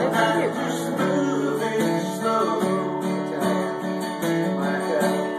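Cutaway acoustic guitar strummed in a steady rhythm, playing a song's chord accompaniment.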